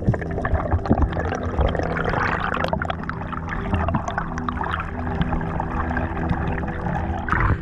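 Splashing and bubbling water noise with many small clicks and pops, over a steady low drone, and a louder surge near the end.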